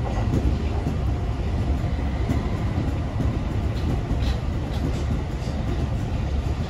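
Steady low rumble of a moving vehicle heard from inside it, with a few faint clicks.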